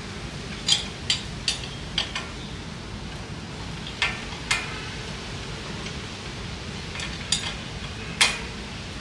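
A steel hand tool clicking and tapping against the metal bolts and housing of a mini tiller's pump as it is bolted on: sharp, irregular clicks, a cluster of five in the first two and a half seconds, two more about four seconds in, and two near the end.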